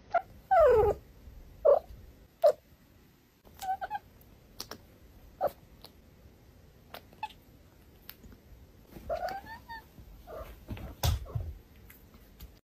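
A cat making short mews and chirps in its sleep. There is a falling mew about half a second in, a run of brief chirps, and a longer mew about nine seconds in.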